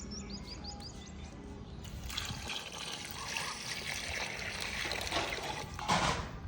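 Water pouring and splashing, a steady hiss that starts about two seconds in, preceded by a few short high chirps.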